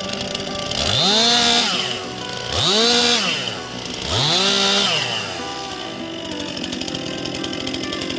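Stihl chainsaw revved up three times from idle, each rev held about a second before dropping back, while bucking logs into firewood rounds; it then idles steadily.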